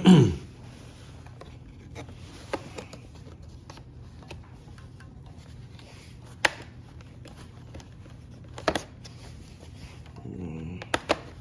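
Scattered sharp clicks and taps of plastic dashboard trim around the gauge cluster of a Nissan 370Z being handled and pried at, over a faint steady hum.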